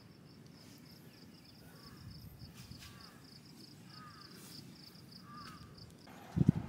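An insect trilling in a steady, rapid pulse, with a few faint chirps over a low rustle. The trill cuts off abruptly near the end, followed by a couple of loud thumps.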